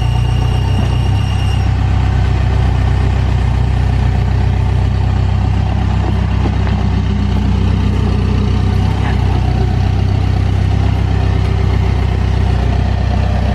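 Backhoe loader's diesel engine running steadily at a low, even speed. A high steady whine over it stops about a second and a half in.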